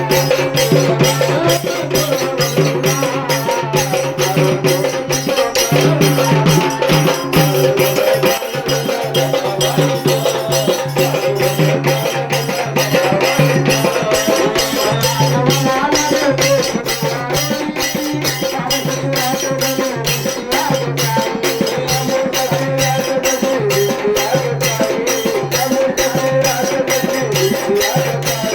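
Marathi devotional folk music: a fast, even rattling percussion beat over a low repeating drone and a wavering melody line.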